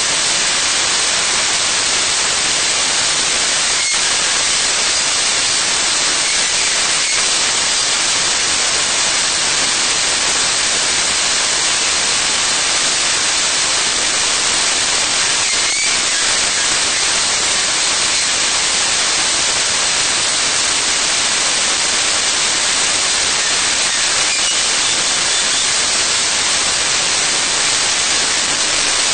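Steady, loud static-like hiss, even throughout, with a few faint brief chirps above it.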